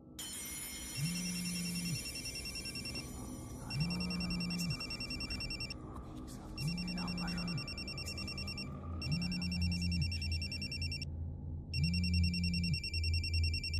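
Cordless landline phone ringing with a high electronic trill, one ring about every two and a half to three seconds, each with a low hum beneath it. A deep low rumble joins about halfway through.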